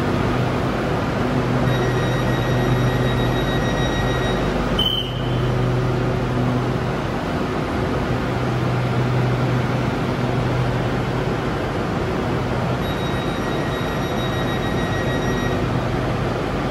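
Hitachi AT100 electric multiple unit standing at the platform with its doors open: a steady low hum from its on-board equipment. A thin high tone sounds twice, each time for about two and a half seconds, and there is a brief sharp click about five seconds in.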